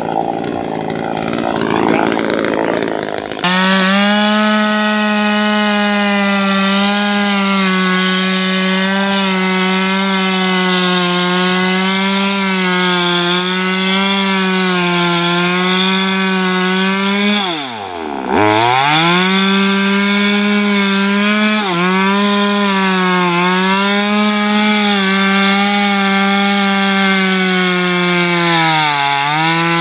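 A top-handle two-stroke chainsaw cuts through teak roots. It starts rough and noisy, then about three and a half seconds in settles into a high-revving whine that wavers with the load. The revs drop sharply about eighteen seconds in and pick back up, then sag again near the end.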